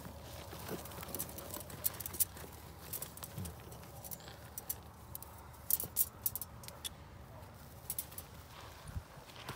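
Gravel and dry dirt crunching and clicking in scattered sharp ticks, loudest in a cluster about six seconds in, with a dull thump near the end, over a low steady rumble.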